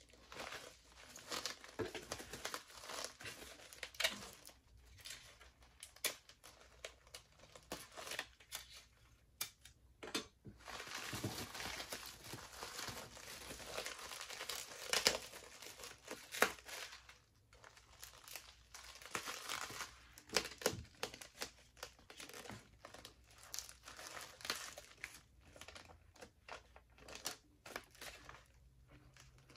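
Bubble wrap crinkling and rustling as it is folded around a mug, with irregular crackles and sharp clicks throughout and denser stretches partway through. Small pieces of clear tape are peeled off and pressed onto the wrap.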